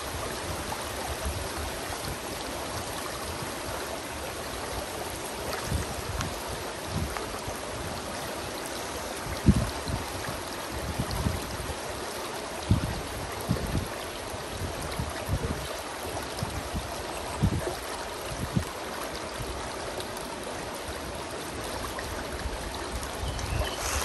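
Shallow creek running over rocks and a gravel riffle: a steady rushing babble of water, with a few brief low thumps scattered through it, the loudest about nine seconds in.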